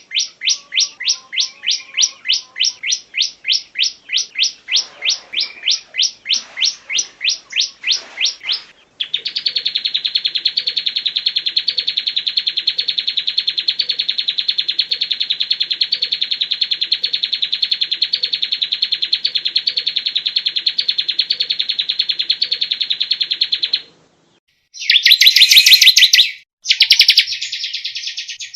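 Recorded songbird song of the kind played as masteran to train competition birds. It starts as a fast run of sharp, high repeated notes, about three or four a second. About nine seconds in it changes to one long, unbroken high trill that lasts some fifteen seconds and cuts off suddenly, and short bursts of rapid high chatter follow near the end.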